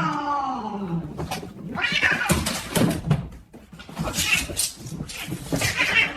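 A cat yowling: a long drawn-out meow that falls in pitch and fades over the first second, followed by several short scratchy noises.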